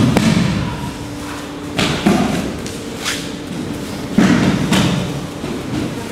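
Bodies landing on tatami mats during aikido throws and break-falls: several heavy thuds with a short ring in the hall, the loudest right at the start and others about two and four seconds in, with a sharper slap about three seconds in.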